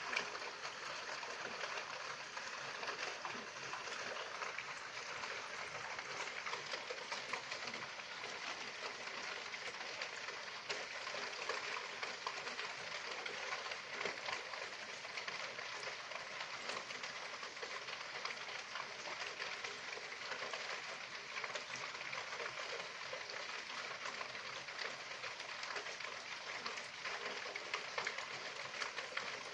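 Steady rain falling, a dense patter of drops on a hard surface.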